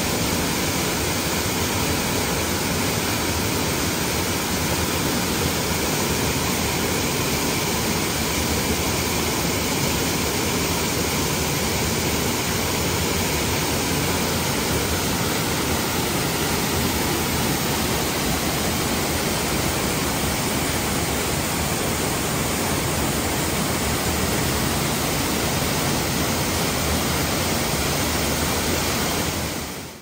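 Waterfall pouring heavily over rock into a churning plunge pool: a steady, even rush of falling water.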